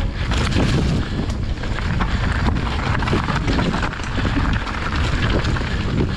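Mountain bike riding down a rocky trail: wind buffeting the action camera's microphone over a steady rumble of tyres on stones, with frequent sharp clicks and knocks from the bike rattling over the rough ground.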